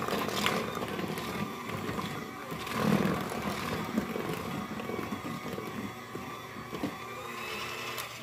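Electric KitchenAid hand mixer running steadily, its beaters churning thick brownie batter in a bowl, with a few sharp knocks.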